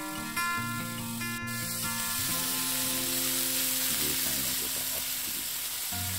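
Food sizzling in a hot pan, a dense hiss that starts about a second and a half in and keeps going, under background music.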